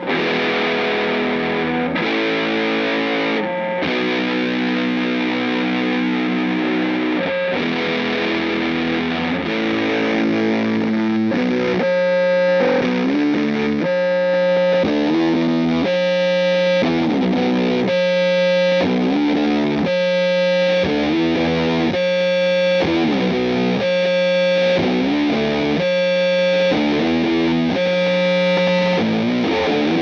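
Fender Coronado II electric guitar played through a Greer Amps Gorilla Warfare MKII, an LM308-chip, RAT-style distortion/fuzz pedal, into a Strymon Iridium amp modeller: heavily distorted held chords, then from about twelve seconds in a riff with sliding notes that repeats about every two seconds.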